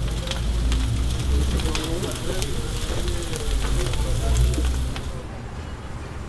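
Food sizzling and crackling on a flat-top griddle, a steady hiss with many small pops. The sizzle drops away suddenly about five seconds in.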